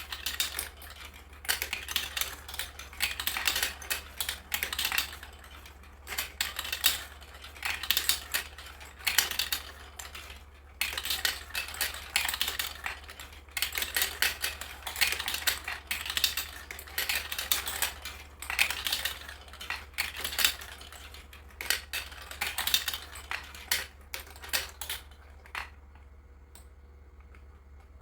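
Marbles rolling and clattering down plastic Lego marble-run tracks: dense runs of rapid clicks and rattles in bursts lasting a few seconds, with short lulls between them, thinning out near the end.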